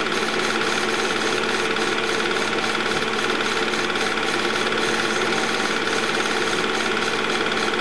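Movie projector running: a loud, steady mechanical whir with a fast, even clatter of the film being advanced through the gate.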